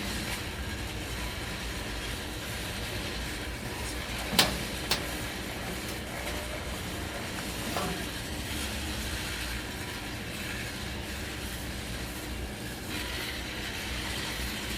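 Steady low machinery noise with a rumble underneath, broken by two sharp knocks about half a second apart, a little over four seconds in, and a fainter one near eight seconds.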